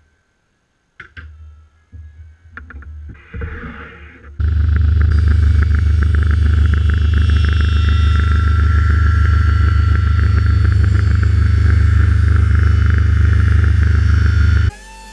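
A few knocks and short scraping sounds on wood, then a loud workshop power tool starts suddenly. It runs steadily for about ten seconds, shaping the timber, and cuts off abruptly near the end.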